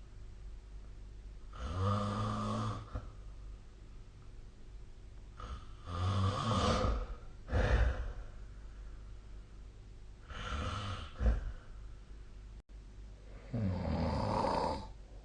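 A sleeping person snoring: four snores about four seconds apart, each a rough drawn-out breath lasting about a second, two of them followed by a short sharp catch.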